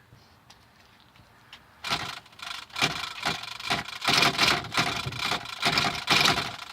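Hand-held sparkler burning, a fizzing crackle that starts about two seconds in and rises and falls in irregular surges.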